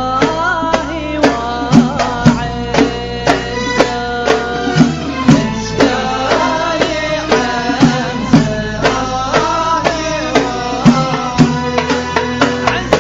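Middle Eastern-style music with a steady hand-drum beat of about two strikes a second under a wavering melody.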